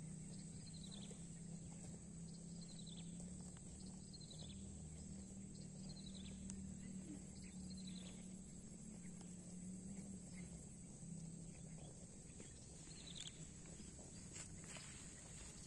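Rural outdoor ambience: a steady high insect drone, with a bird repeating a short downward-sliding call every second or two. Under it runs a faint low steady hum that fades out about two-thirds of the way through.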